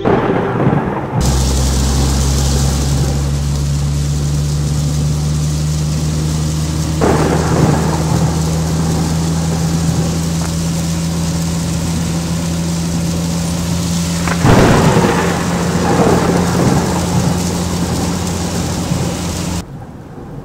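Heavy rain pouring in a thunderstorm, a steady hiss over a low drone, with two sudden claps of thunder, about seven and fourteen and a half seconds in, each dying away over a few seconds. The rain noise cuts off suddenly just before the end.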